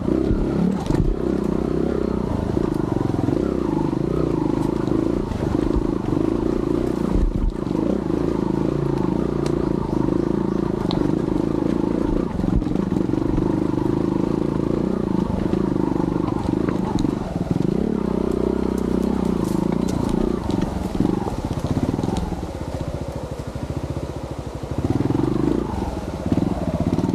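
Yamaha TY-S125F trials motorcycle's single-cylinder engine running under load while riding up a rough forest road. The engine note eases off a little over 20 seconds in and picks up again near the end.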